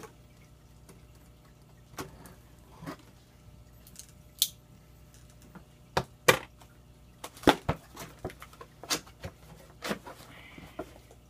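Cardboard shipping box being opened by hand: a small knife slitting the packing tape, then the flaps pulled open, heard as scattered sharp clicks, scrapes and cardboard rustles.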